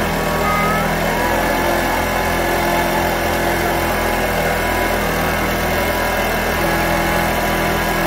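A small engine running steadily at an even idle, with no revving or change in speed.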